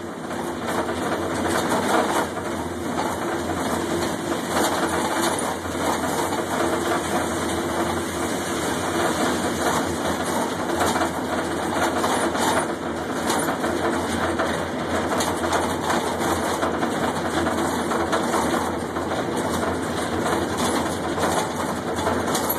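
Steady machinery noise of an overhead crane in a steel mill, heard from inside the crane cab: a continuous hum and rumble that keeps an even level throughout.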